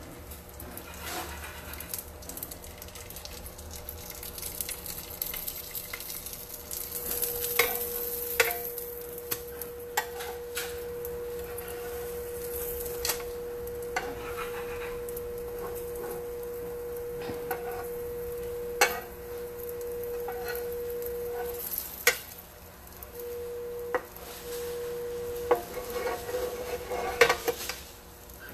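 French toast sizzling in an electric skillet, with scrapes and sharp taps of a slotted spatula against the pan. A steady hum comes in about seven seconds in, breaks off a little past twenty seconds, and returns briefly.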